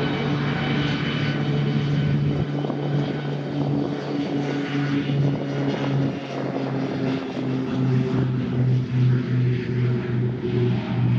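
Beech B100 King Air's twin Garrett TPE331 turboprops at takeoff power during the takeoff roll. A loud, steady propeller drone in the second half starts to throb in a beat about twice a second.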